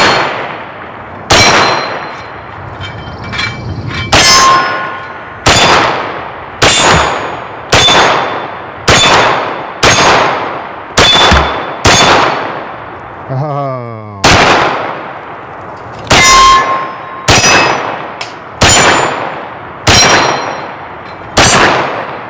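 FK BRNO PSD pistol fired with its 9mm barrel: about fifteen shots at a steady pace of roughly one a second, with a short pause about halfway. Many shots are followed by the ring of steel targets being hit.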